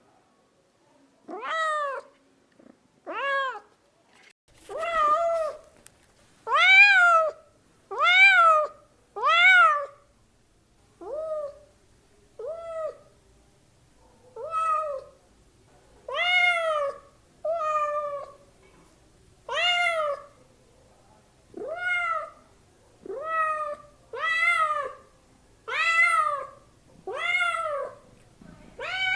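Domestic cat meowing over and over, about eighteen separate meows, each a short call that rises then falls in pitch, with brief pauses between them.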